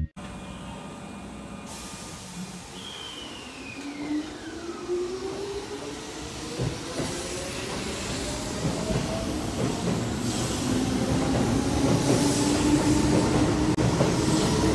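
Keihan commuter electric train pulling away from a station platform: its traction motors whine in several tones that climb steadily in pitch as it accelerates, over a rumble of wheels on the rails that grows louder.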